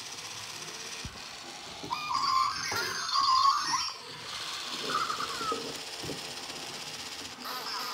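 Zhu Zhu Pets robotic toy hamsters running on a tile floor: a small motor hum under bursts of high, wavering electronic squeaks and chirps, loudest about two to four seconds in and again near five seconds.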